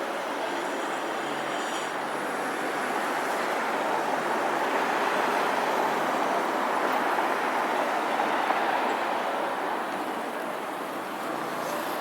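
Steady road traffic noise, a continuous rush that swells slightly in the middle and eases off toward the end.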